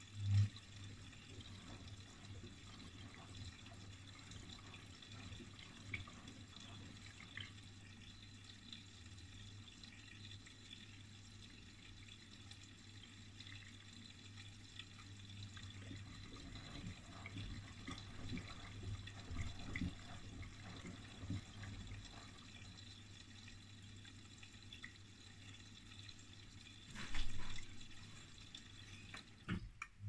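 Miele Softronic W3523 washing machine with water trickling and dripping over a steady low hum. A louder knock comes just after the start and another a few seconds before the end.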